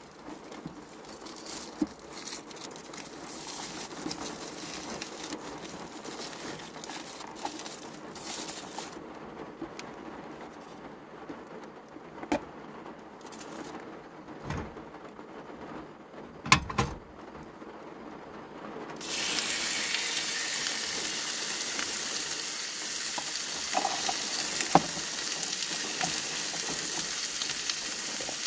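A few knocks from food containers being handled, then about two-thirds of the way in, raw chicken pieces start sizzling in a hot frying pan on a portable gas stove. The frying sizzle sets in suddenly and holds steady to the end.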